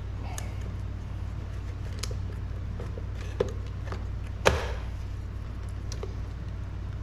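A few sharp clicks and knocks of a plastic fuel pump module and its pump and hose being handled and pressed together, the loudest about four and a half seconds in, over a steady low hum.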